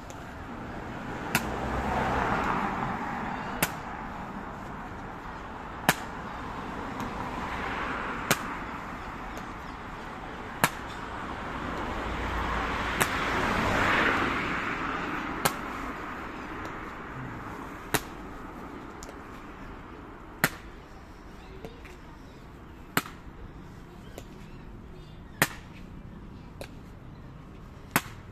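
Evenly spaced sharp clacks of an Evzone guard's hobnailed tsarouchi clogs striking stone paving during the slow ceremonial march, a dozen steps about two and a half seconds apart. Under them, a noise swells and fades three times, like traffic passing.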